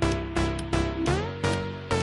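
Electronic dance music with a steady, driving beat and synth notes that slide down and up in pitch.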